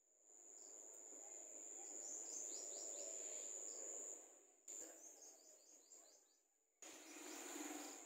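Faint outdoor ambience: a steady high-pitched insect trill with short, falling bird chirps over it, breaking off and restarting abruptly twice.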